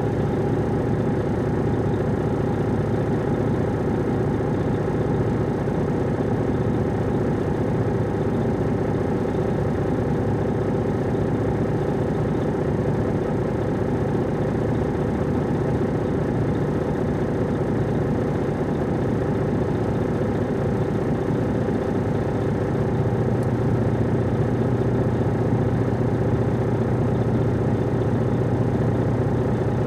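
The Detroit Diesel Series 60 diesel engine of a 2002 MCI D4500 coach running steadily, heard from inside the bus. A low hum grows stronger about 23 seconds in.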